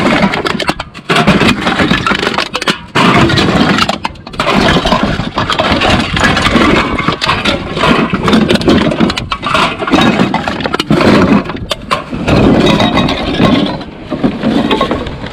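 Loud vehicle engine and road noise with a rough, noisy texture, broken by a few abrupt cuts in the first four seconds.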